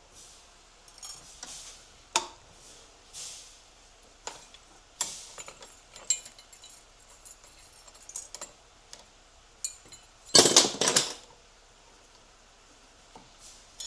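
Light metallic clicks and clinks of hand tools against a 6L80 transmission's clutch drum as a snap ring is pried out, with a louder rattle of metal parts lasting about a second near the end.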